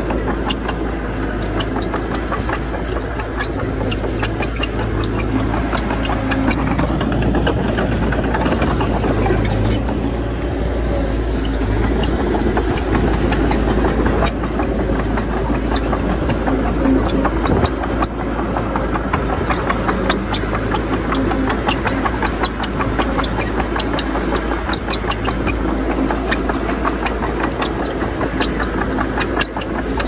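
Bulldozer's diesel engine running steadily under work, with a constant rattle of small clanks and clicks.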